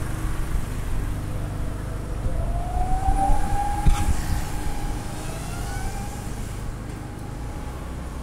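Street traffic rumble. About two and a half seconds in, a tone rises in pitch, holds for a couple of seconds and fades, and a single sharp click comes near the middle.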